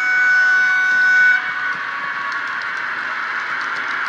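Electric locomotive horn played by an ESU LokSound decoder through a small 22x13x7 speaker in an LS Models Siemens Vectron, held as one steady tone that cuts off about a second and a half in. The model's steady running noise carries on underneath and after it.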